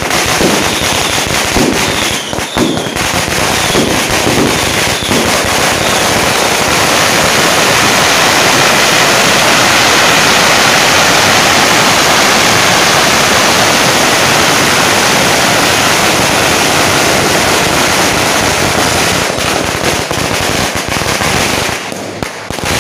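Long strings of red firecrackers going off on the pavement: separate loud bangs at first, building about six seconds in into a dense, unbroken crackle that thins out again near the end.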